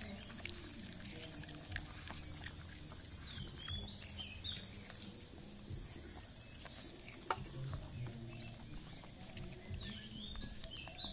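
A pug chewing rice paper salad from a hand, with wet chewing clicks and low grunting breaths now and then.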